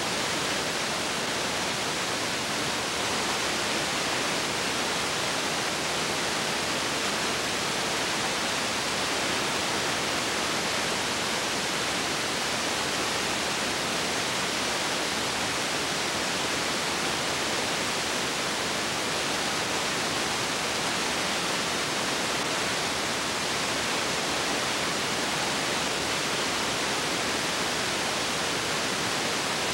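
Steady, even hiss with nothing else in it: the background noise of a silent film's tape or video transfer.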